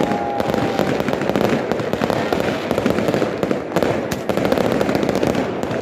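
New Year fireworks and firecrackers going off in a dense, continuous barrage of overlapping bangs and crackling, with a thin whistle fading out in the first second.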